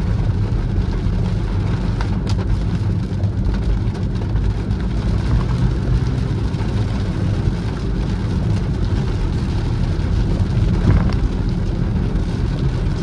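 A car driving in the rain: a steady low road and engine rumble with the patter of rain on the car, and a couple of faint ticks.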